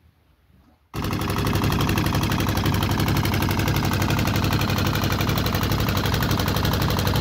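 Small fishing boat's inboard engine running under way with a rapid, even firing beat. It cuts in suddenly about a second in.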